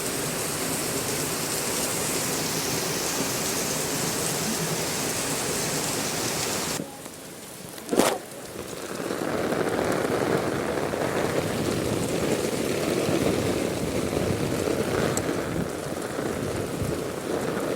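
Heavy rain pouring steadily. About seven seconds in the sound drops away abruptly, with a sharp click a second later, and the rain then comes back with a fuller, deeper rush.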